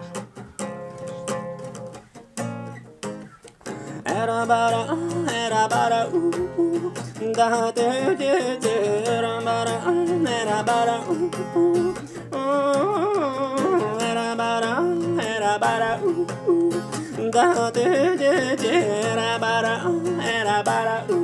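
A song: acoustic guitar strumming, joined by a singing voice about four seconds in.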